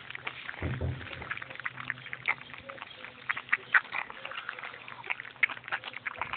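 Weaning cocker spaniel puppies eating from bowls: fast, irregular wet smacking and lapping clicks.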